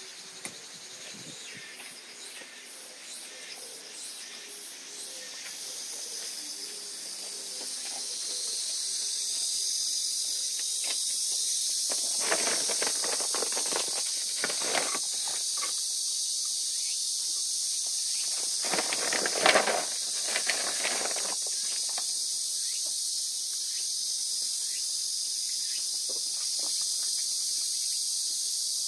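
A steady high-pitched hiss that grows louder over the first several seconds and then holds, with a fast pulsing tick in the opening seconds. Two stretches of louder scuffling come in the middle, the louder one about two-thirds of the way through.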